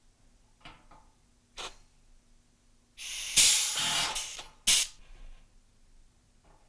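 Pneumatic rivet nut gun cycling: a burst of compressed-air hiss lasting about a second and a half, then a sharp click of the tool. A few lighter clicks of the tool and the metal nut come before it.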